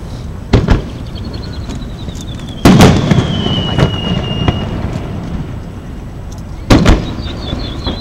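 Aerial firework shells bursting with sharp bangs: a quick pair under a second in, the loudest about three seconds in, and another pair near the end. A wavering firework whistle falls slowly in pitch through the middle, and another begins near the end.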